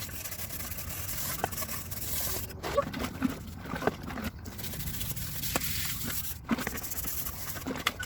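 A saucepan being scrubbed by hand: scraping strokes mixed with scattered sharp clinks and knocks of the metal pan.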